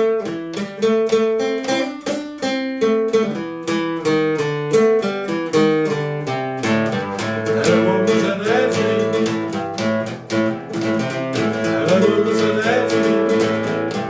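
Acoustic guitar music with picked notes. About seven seconds in it gets fuller, and a wavering melody line comes in above the guitar.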